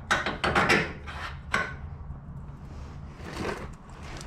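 Metal parts clinking and scraping as bolts and suspension parts are fitted by hand on a UTV's rear axle: a cluster of short clatters in the first second and a half, and another about three seconds in, over a faint low hum.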